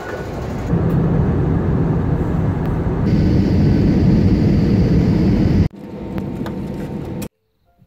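Jet airliner noise heard from inside the cabin: a loud, steady rush of engine and airflow during a low approach over the airfield. It drops abruptly to a quieter, steady engine hum with faint tones on the apron, then cuts to silence near the end.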